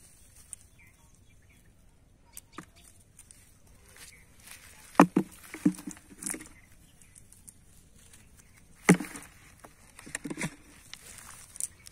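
A few sharp knocks and dull thumps on a black plastic bucket as small fish picked from a cast net are dropped in and the bucket is handled, the loudest about five seconds in and about nine seconds in.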